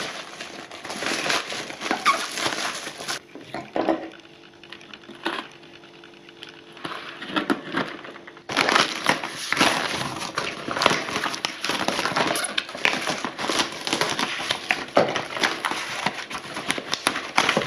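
Plastic wrap and cardboard packaging being pulled and torn open by hand, a dense run of crinkling and crackling that eases off for about five seconds in the middle.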